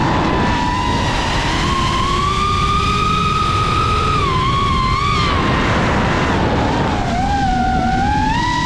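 FPV freestyle quadcopter's electric motors whining, the pitch gliding up and down as the throttle changes, over steady wind rush.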